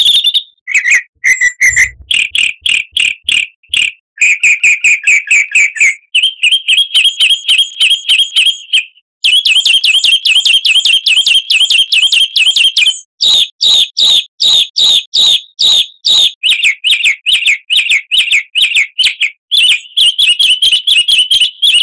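Songbird singing loudly in rapid, repeated chirps and trills, switching to a new phrase every few seconds, as in a pancingan birdsong recording used to set caged birds singing.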